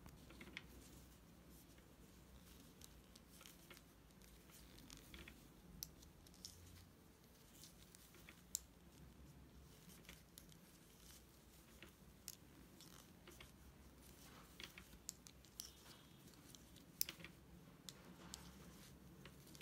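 Near silence with faint, scattered light clicks and rustles: hand-knitting needles tapping together and yarn sliding as stitches are knitted across a row.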